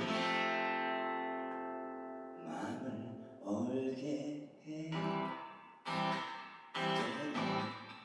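Acoustic guitar played live: a strummed chord rings out and fades for about two seconds, then chords are strummed in a steady rhythm about once a second.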